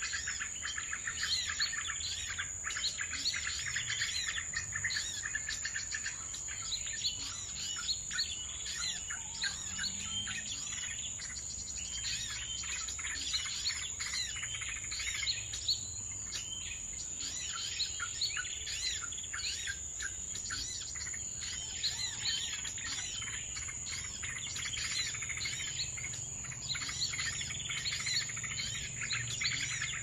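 Many small songbirds chirping and twittering rapidly in a dense, overlapping chorus, over a steady high-pitched whine.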